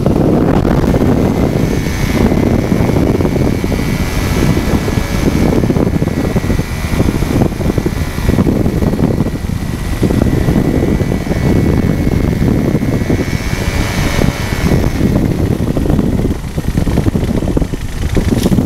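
Flexwing microlight trike's Cors-Air Black Bull two-stroke engine and pusher propeller running steadily, mixed with wind rushing over the open cockpit, as the trike comes down to land.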